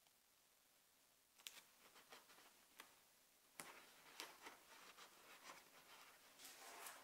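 Faint crinkling and light ticks of paper tape strips being handled and pressed onto a foam form with the fingers. It starts about a second and a half in and gets busier after about three and a half seconds.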